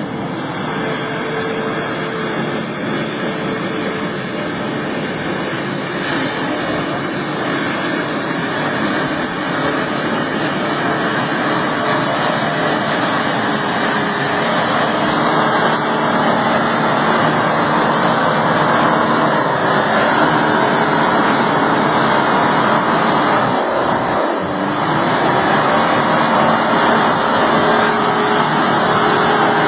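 A motor running steadily under a loud rushing noise, slowly growing louder.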